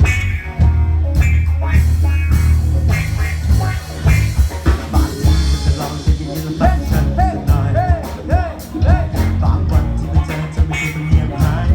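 A band playing an instrumental passage of a Thai pop-rock cover song: heavy bass and steady drums. From about halfway in, a repeated melodic figure of short notes that bend up and fall back comes in, about twice a second.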